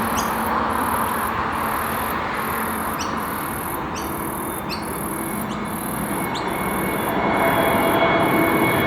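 Pratt & Whitney geared turbofan engines of a landing Airbus A321neo: a steady jet rush with whining tones, growing louder about seven seconds in.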